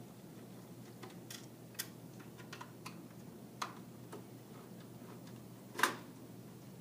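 Scattered light clicks and taps of a screwdriver backing out the power supply's screws at the back of a PC case, with one louder knock near the end.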